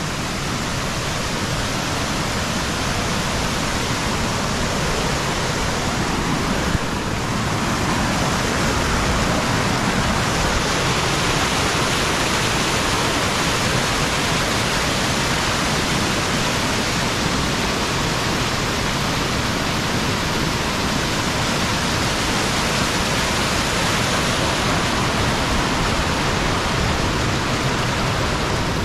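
Steady rush of high-running snowmelt water pouring down a cascading creek, a little louder after about eight seconds. One brief click about seven seconds in.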